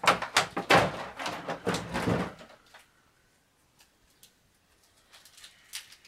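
Handling noise of plastic toy starships and a paper instruction sheet: rustling and clattering for about two seconds, then a few faint clicks.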